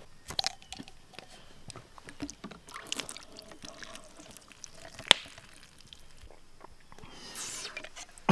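A plastic water bottle and LifeStraw filter being handled: light clicks and taps, one sharp click about five seconds in, and water sloshing. Near the end, water is sucked through the LifeStraw.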